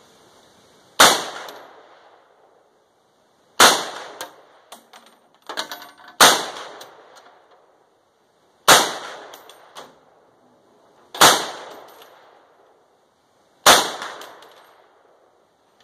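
Six rifle shots about two and a half seconds apart, each ringing out and dying away over about a second, with a few light metallic clinks between the second and third shots.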